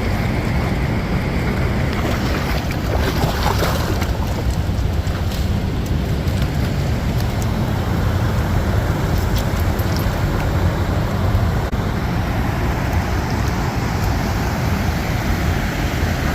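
Steady rush of a river waterfall: loud, even water noise without a break.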